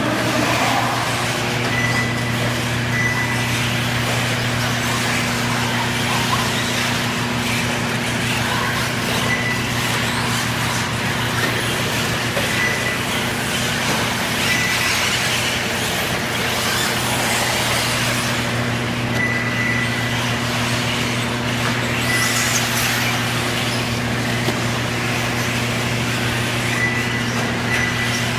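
Electric 1:8 scale off-road RC buggies racing on a track, under a steady low hum, with short high beeps at irregular intervals.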